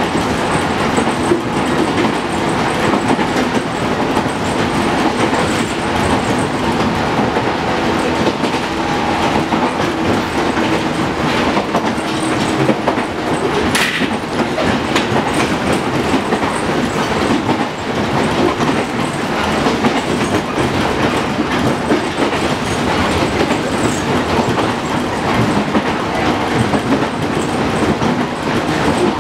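Running sound of a JR Kyushu 415 series 500-subseries electric multiple unit, heard from inside the passenger car: a steady drone of motors and wheels on the rails, with one brief sharp click about halfway through.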